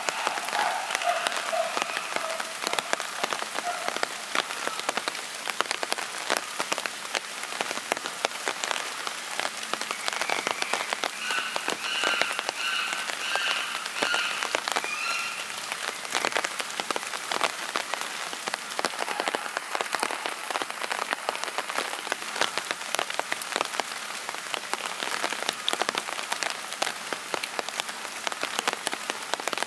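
Steady rain falling, a dense patter of drops hitting a surface. A few short pitched, pulsed calls rise above it at the start and again about halfway through.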